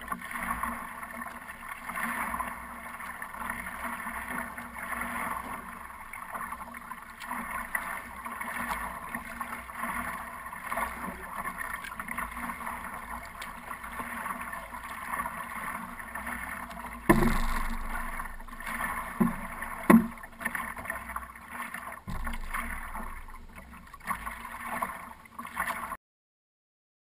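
Water washing and splashing steadily along the hull of a wooden stand-up paddleboard under way, with a few louder thumps about two-thirds of the way through. The sound cuts off suddenly near the end.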